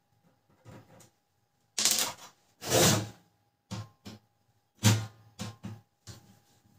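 Parts of a Canon LBP 2900 laser printer being handled and pulled apart: scattered clicks and knocks, two louder scraping rasps about two and three seconds in, and a sharp knock near five seconds.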